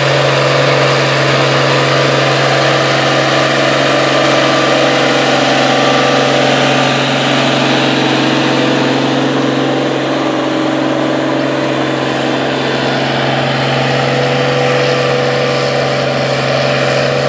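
International Harvester 1066 tractor's diesel engine running steadily under load as it pulls a five-bottom plow, holding one even pitch. It dips slightly in loudness for a few seconds midway.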